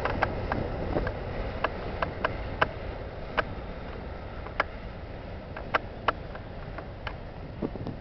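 Departing freight train of covered hopper cars rumbling away and fading, with scattered sharp clicks.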